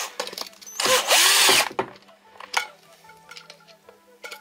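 Bosch cordless drill-driver running in one burst of about a second, its motor pitch rising and falling as it drives a hex screw tight into the two halves of the scooter's split rim.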